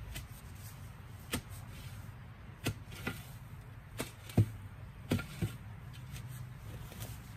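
Garden hand tool chopping in the yard: about seven sharp strikes at uneven intervals, the loudest a little over four seconds in.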